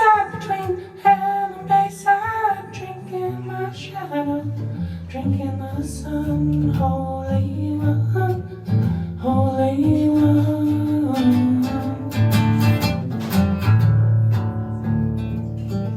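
Live band playing an instrumental stretch of a song, led by guitar over a low bass line, with the strumming growing denser in the second half.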